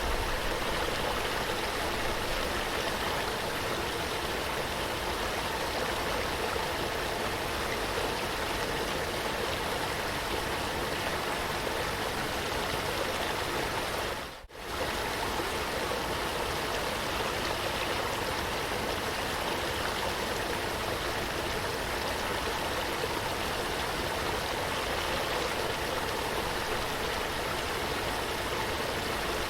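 Steady rushing of flowing water, like a stream, without let-up; about halfway through it drops out for a split second and comes straight back.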